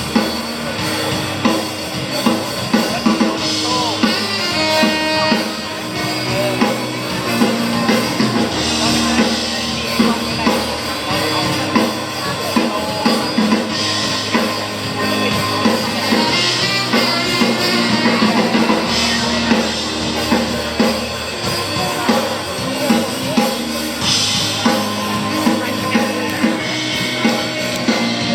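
Live rock band music during a sound check: a drum kit keeps a steady beat under electric guitar, with some singing.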